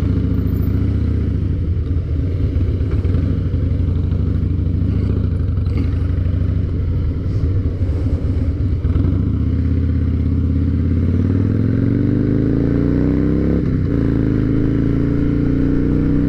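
Harley-Davidson Night Train's V-twin engine running unevenly at low revs as the bike pulls away and turns. From about ten seconds in it accelerates with a steadily rising pitch, dips briefly near fourteen seconds, then climbs again.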